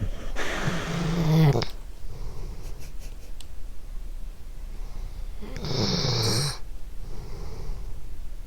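A sleeping dog snoring: two snores, each about a second long and about five seconds apart, with softer breathing between them.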